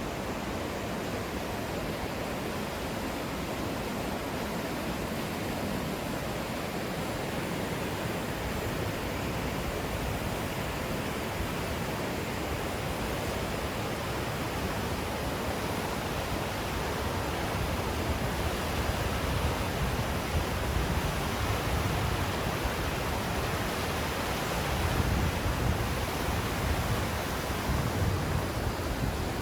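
Naena Falls pouring: a steady rush of falling water, with low rumbling swells in the second half.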